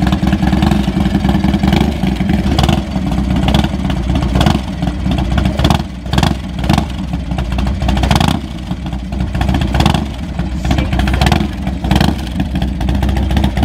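Harley-Davidson Dyna Low Rider's V-twin engine idling, revved in repeated short blips of the throttle.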